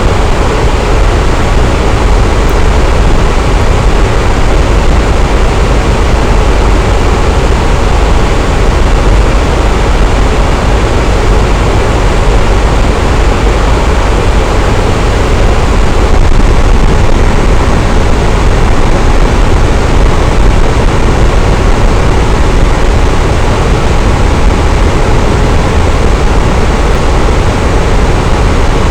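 Electric fan running steadily: an even, constant rush of air with a strong low hum underneath, unchanging throughout.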